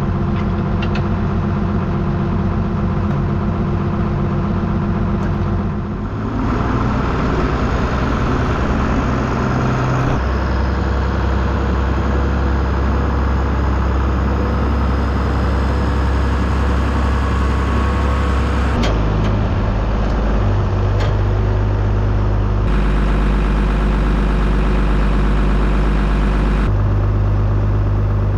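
Farm tractor engine running at a steady idle, low and loud. Its pitch and tone shift abruptly several times.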